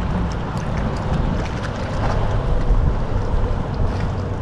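Wind buffeting the microphone: a steady, noisy low rumble over open water, with a few faint light ticks.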